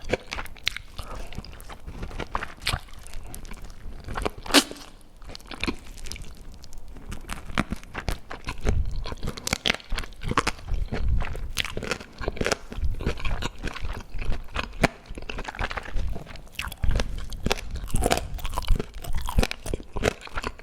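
Close-miked eating: a person chewing and biting, with irregular crunching and wet mouth clicks throughout and a sharper crunch about four and a half seconds in.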